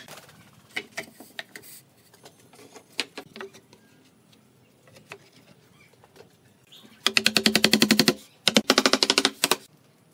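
Light knocks of wooden boards being handled and set down on a workbench. Near the end come two loud bursts of fast mechanical rattling, each about a second long, with roughly a dozen strokes a second.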